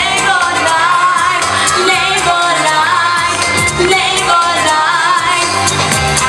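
Upbeat dance music with a singing voice and a steady beat: the track the team is dancing to.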